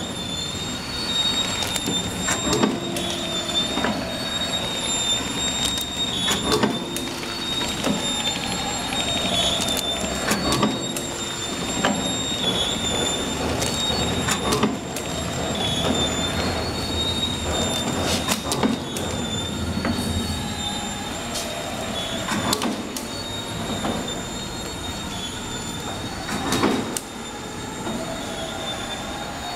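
Three-lane sachet packaging machine running: a steady high-pitched whine over a constant mechanical clatter of rollers and sealing jaws, with a sharper clack about every four seconds.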